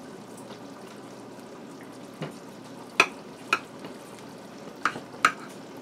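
Metal tongs and a fork clinking against a ceramic plate while pulling apart a tender cooked pork roast: about five sharp clicks in the second half, over a steady faint hiss.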